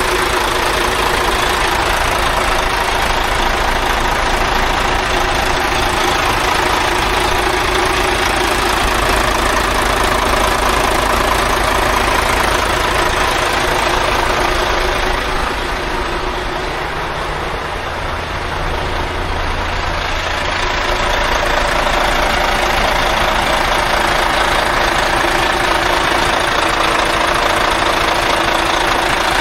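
Diesel engine of a new 2025 Volvo VN heavy truck running steadily at idle, growing a little quieter for a few seconds about halfway through before returning to its earlier level.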